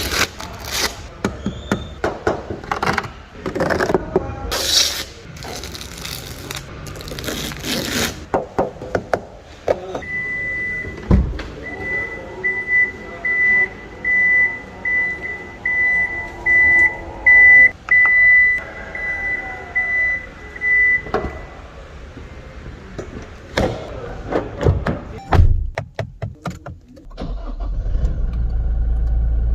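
Toyota Fortuner: a run of clicks and knocks, then a high beeping chime about once a second for some ten seconds over a steady whir. After a few more clicks, the engine starts near the end and runs with a low steady rumble.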